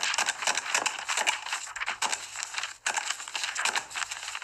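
Paper and small objects being handled on a desk: rustling and crinkling with many small irregular clicks.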